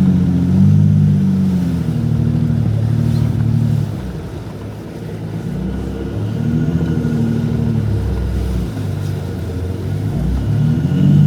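Jeep Gladiator EcoDiesel V6 engine running under throttle, its revs rising and falling in swells every couple of seconds, dropping quieter about four seconds in.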